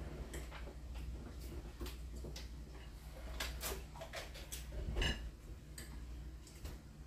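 Scattered light clicks and crinkles of eating at a table, forks on plates and a plastic water bottle being handled and drunk from, over a steady low hum. The clicks come thickest a little past the middle, and a louder short squeak comes about five seconds in.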